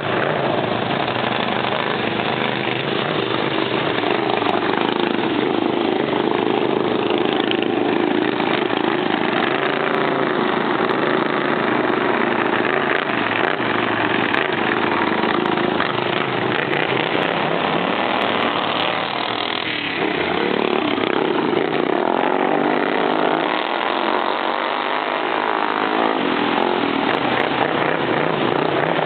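Racing lawn mower engines running continuously, their pitch rising and falling now and then as they rev.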